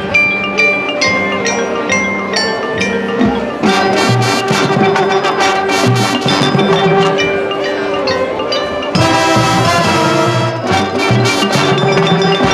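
Marching band and front ensemble playing: struck mallet-percussion notes ring out over the opening seconds, then brass and the rest of the band join in a fuller, sustained passage.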